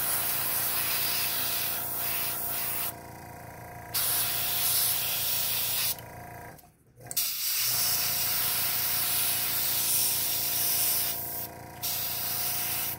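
Gravity-feed airbrush spraying white base-coat paint: a steady hiss of air at about 25 to 27 PSI that stops briefly three times as the trigger is let off, over a steady low hum.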